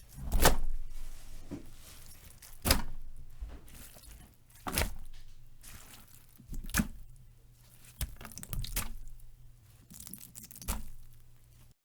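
Wet, sloppy plops, about six of them, spaced roughly two seconds apart, each a sudden slap that dies away over a second or so.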